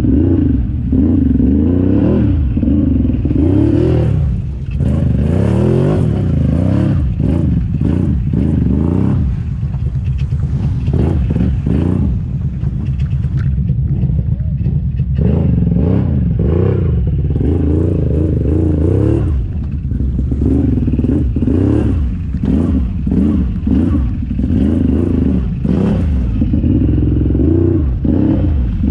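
Big-bore V-twin engine of a modded 2015 Can-Am Renegade ATV, through an aftermarket HMF exhaust, revving up and down again and again under load in mud, with clattering and knocks from the machine.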